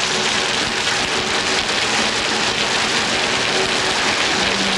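A steady, even hiss of rushing noise, strongest in the upper range, with no clear rhythm or pitch.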